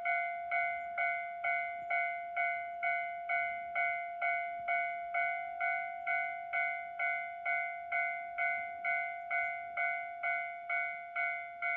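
Railway level-crossing warning bell ringing a steady, evenly spaced ding a little over twice a second, the signal that a train is approaching.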